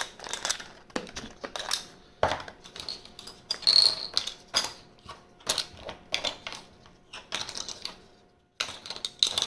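Small cardboard and plastic collectible discs (POGs and Tazos) being handled and packed away. They make irregular clicks and clatters, with a brighter clink about four seconds in.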